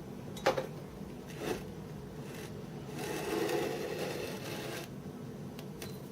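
Two sharp knocks about a second apart, then a scraping or rubbing sound lasting nearly two seconds.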